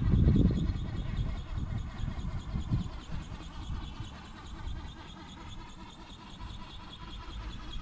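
Wind buffeting the microphone, a gusty low rumble strongest in the first second, then dying down. Under it runs a faint, steady high whine of several tones, the electric drive of the radio-controlled flapping-wing ornithopter flying overhead.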